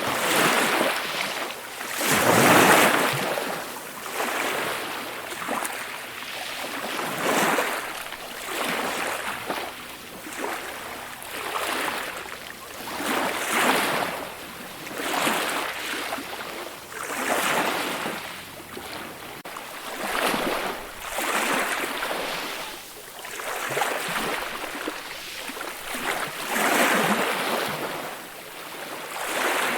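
Ocean waves washing onto a shore, a rushing swell that rises and falls every second or two, with the largest wave about two seconds in.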